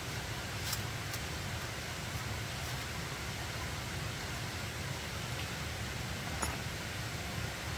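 Steady hiss of falling rain, with a few faint ticks.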